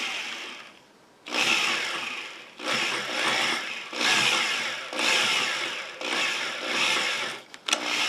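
DeWalt power drill with a twist bit boring into a pine board, run in about six short bursts of a second or so, with brief pauses between, as the hole is deepened a little at a time.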